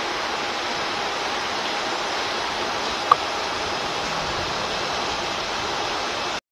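Steady, even hiss like rushing water, with one short high chirp about three seconds in; the sound cuts off abruptly just before the end.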